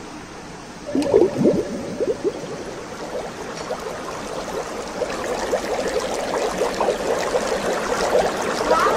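Vinegar poured from a glass bottle into a glass of baking soda, gurgling loudly as the pour starts about a second in, then the mixture fizzing and crackling as it foams up with carbon dioxide, building toward the end.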